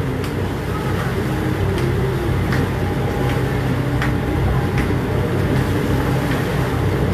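A boat's engine running steadily with a low rumble, while a sharp click repeats about every three-quarters of a second.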